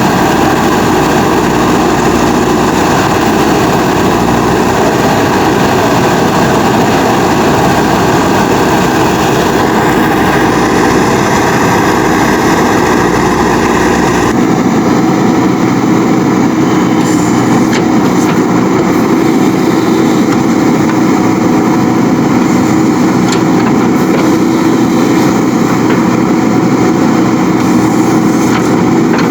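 JCB 3DX Super backhoe loader's diesel engine running steadily with a constant hum. About halfway through, the deep low rumble drops away abruptly.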